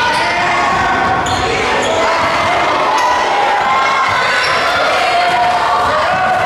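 Basketball game sound in a gym: the ball bouncing on the hardwood floor in short knocks, over a steady wash of crowd and player voices echoing in the hall.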